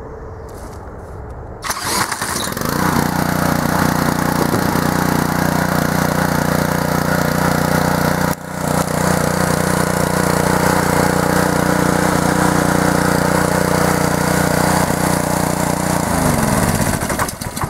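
Honda GC190 single-cylinder engine being spun over by a cordless drill through a hole in its recoil starter cover. It catches about two seconds in and runs steadily, then is shut off near the end and slows to a stop.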